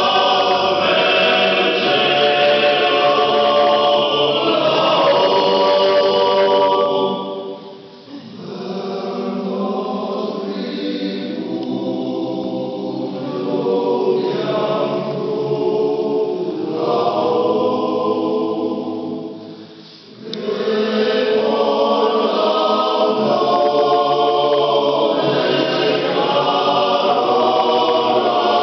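Male choir singing: a loud phrase, a softer passage from about eight seconds in, then full voice again from about twenty seconds in.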